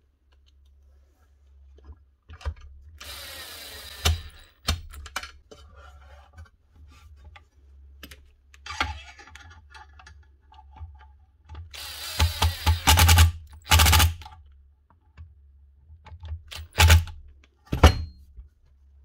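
Hand-work noises on a power tool's cord and housing: scattered clicks and knocks, with short noisy bursts about three seconds in and again around twelve to fourteen seconds in, over a steady low hum.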